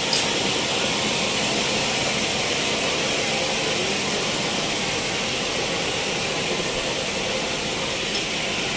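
Sawmill machinery running with a steady hiss, with no separate knocks or strokes.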